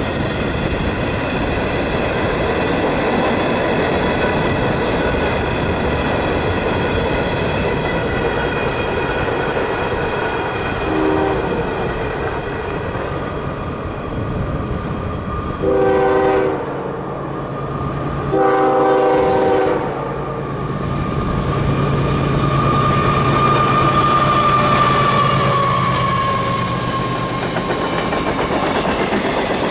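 Freight cars rolling past with a steady rumble and clickety-clack, then a diesel locomotive's multi-chime air horn sounds a short blast and two longer blasts as the eastbound Canadian Pacific manifest approaches. The lead locomotive's diesel engine drones by, and a high, slightly falling squeal follows near the end as the cars roll past.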